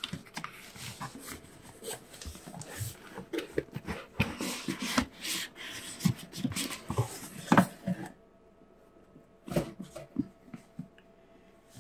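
Cardboard shipping carton rustling, scraping and knocking as a boxed item is worked and slid out of it, in irregular scuffs with a louder knock about seven and a half seconds in; then it goes quieter, with a couple of light taps.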